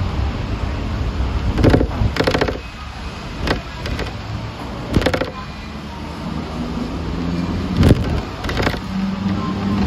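Hong Kong double-decker tram running: a steady low rumble broken by irregular knocks and rattling clatter from the moving car, with a low hum in the second half.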